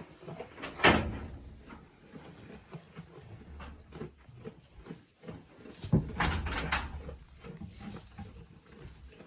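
Goats moving about in a barn pen: a sharp knock about a second in, then a longer, louder scuffle or call around six seconds in.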